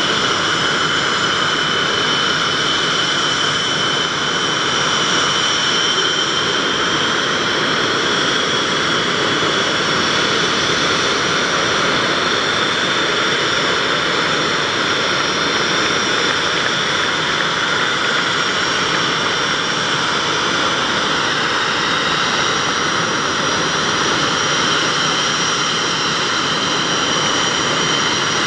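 Blue Angels F/A-18 Hornet jet engines idling together on the flight line: a steady jet roar with high-pitched turbine whine tones that drift slightly in pitch.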